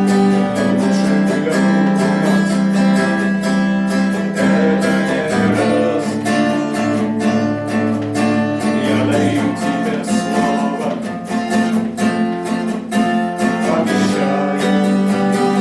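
Song played on a strummed acoustic guitar, with steady rhythmic strokes.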